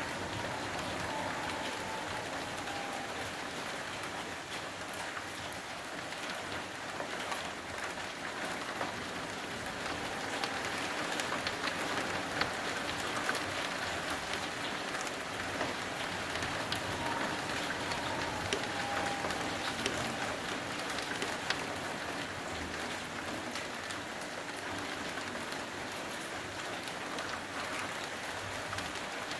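Heavy rain falling steadily: an even hiss with scattered sharp ticks of individual drops striking nearby surfaces.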